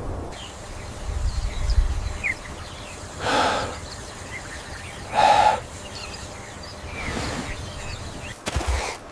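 Outdoor nature ambience with scattered faint small-bird chirps over a low rumble. Two short, loud, harsh sounds stand out, one about three seconds in and one about five seconds in.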